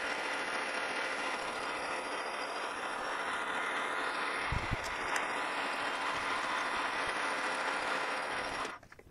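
Metal lathe running with its collet chuck spinning, a steady whir and hiss as the tool turns down a brass rod. The sound stops abruptly near the end as the lathe is shut off.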